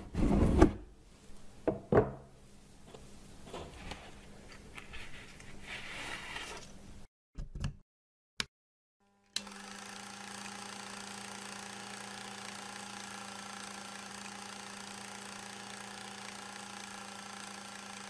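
Several knocks and thumps from a box being handled, then a couple of short clicks. About nine seconds in, a film projector starts suddenly and runs with a steady mechanical hum.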